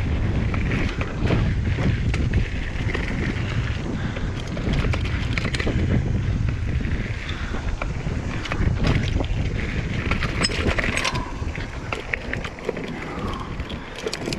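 Mountain bike riding over dirt singletrack: steady tyre rumble on the trail and wind buffeting the camera microphone, with many short knocks and rattles from the bike over bumps in the ground.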